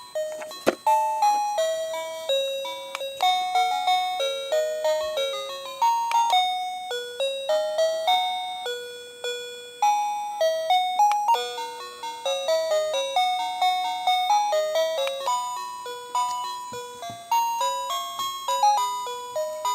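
Wireless doorbell's plug-in chime receiver playing its built-in electronic melodies through its small speaker: a string of bright, beeping notes stepping up and down, each ringing and fading. A sharp click comes near the start and again about halfway through.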